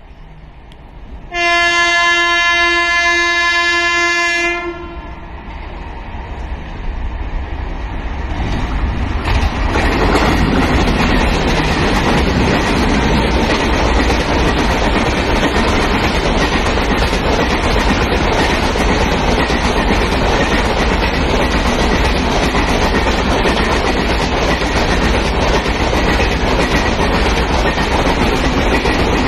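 An electric locomotive's horn gives one long blast lasting about three seconds, starting a second in. The Rajdhani Express's noise then swells as it approaches, and its LHB coaches roll past at speed with a steady rush of wheels on the rails.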